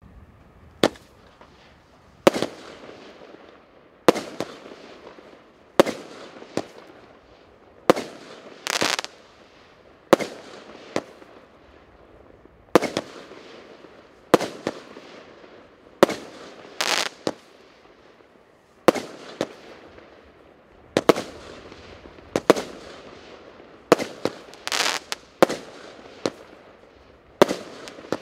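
Russkiy Feyerverk P7342 'Встречайте', a 16-shot firework battery of 1-inch (25 mm) calibre, firing shot after shot. It gives a string of sharp bangs, one every one to two seconds, each trailing off in a hiss, with a few reports coming in quick pairs.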